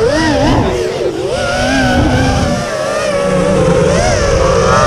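FPV quadcopter's electric motors and propellers whining, the pitch swinging up and down quickly with throttle, over wind noise on the onboard microphone.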